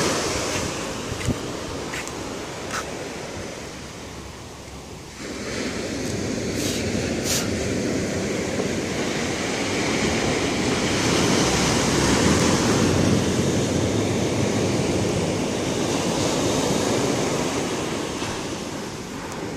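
Ocean surf breaking and washing up a sandy beach: a steady rushing wash that drops for a moment about four seconds in, then swells back, loudest around the middle.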